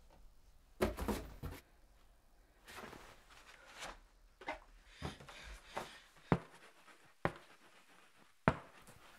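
Household items being rummaged through and handled: soft rustling broken by scattered knocks and clicks. The sharpest clicks come in the second half.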